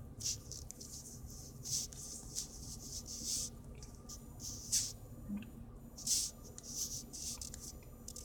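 Soft, short scratchy rubs, about ten in irregular succession: a fingertip swiping across a phone's touchscreen to scroll, over a faint steady hum.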